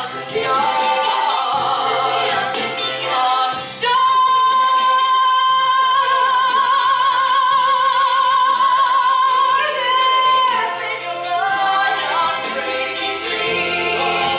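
A woman singing a musical-theatre song with musical accompaniment. About four seconds in she holds one long note with vibrato for some six seconds, then moves on through the melody.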